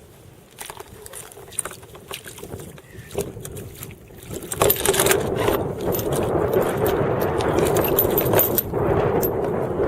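Scattered small clicks and light rattles, then about four and a half seconds in, heavy wind buffeting the microphone, loud and gusty.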